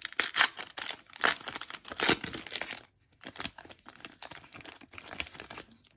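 Trading-card pack wrapper being torn open and crinkled, in irregular crackles, loudest in the first two seconds, then fainter after a brief pause about three seconds in.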